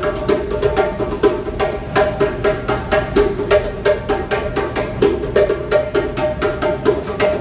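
Djembe played by hand in a fast, steady rhythm: a quick run of sharp strokes over a ringing drum tone.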